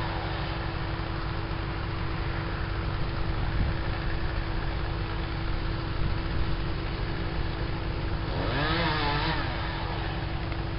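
An engine running steadily at one speed, giving a constant low hum. Near the end a short wavering sound rises and falls over it.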